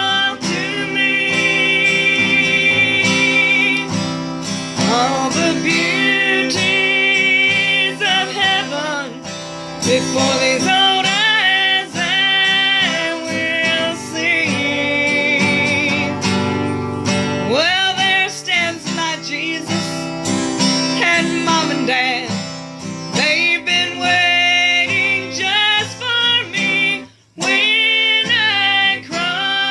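Country gospel song with acoustic guitar and a wavering lead melody, playing through an instrumental stretch between verses. There is a brief drop-out near the end.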